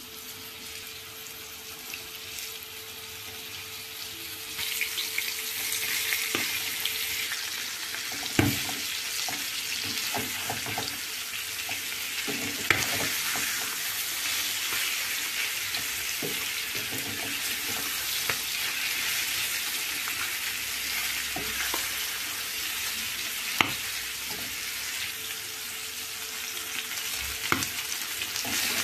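Flour-dredged chicken livers sizzling in oil in a non-stick frying pan, the sizzle growing louder over the first five seconds or so. Occasional knocks sound through it as the pieces are stirred and turned with a wooden spatula.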